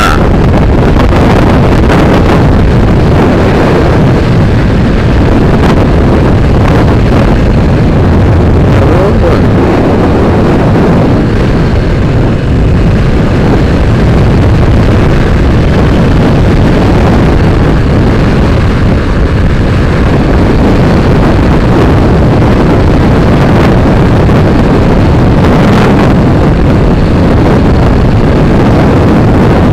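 Motorcycle riding at speed: loud, steady wind buffeting on the microphone, with the engine and road noise underneath.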